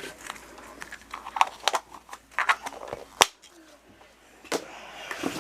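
Small toy packaging being handled and opened: plastic wrapper crinkling and small plastic pieces clicking, with one sharp snap about three seconds in.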